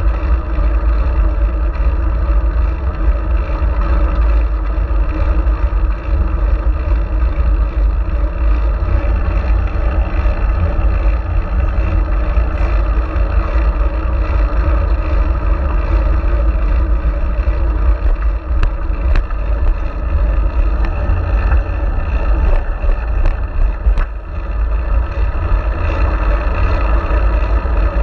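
Steady low rumble of wind and road noise on a bike-mounted action camera, from a fixed-gear bicycle riding along at speed. A few sharp clicks come about two-thirds of the way in.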